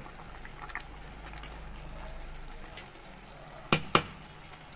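Pot of nearly cooked rice simmering on a gas burner with a low, steady sound, then two sharp clicks close together near the end as a steel spatula knocks against the pot.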